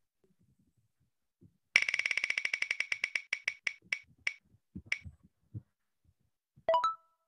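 Spinner-wheel web app's tick sound effect: rapid clicks that begin about two seconds in and slow down as the wheel coasts to a stop, followed near the end by a short chime.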